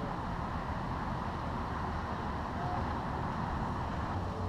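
Steady wind rushing over the microphone, with a faint low hum beneath it.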